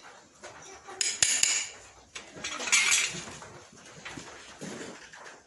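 Farrier's hammer tapping a steel horseshoe on a horse's hoof: three quick metallic taps about a second in, then a louder, longer ringing metal clatter around three seconds in.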